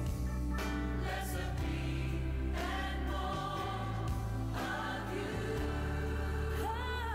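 Recorded gospel choir song with a lead singer, slow held vocal lines over steady low bass notes.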